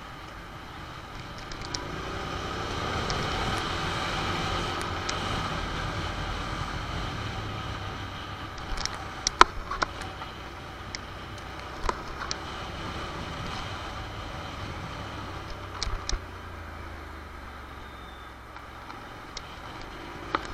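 Honda NC750 motorcycle's parallel-twin engine running while riding in traffic, with wind noise; the engine note and loudness rise about two seconds in. A few sharp clicks or knocks come through, the loudest about nine seconds in.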